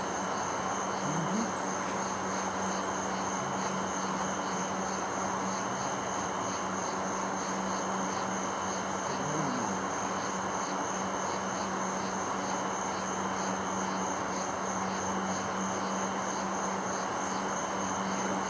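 Night insects trilling steadily in a fast, even pulse, with a steady low hum underneath.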